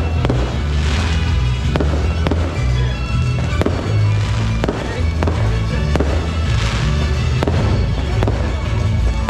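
Fireworks bursting overhead in quick succession, over loud show music with heavy bass from the park's sound system.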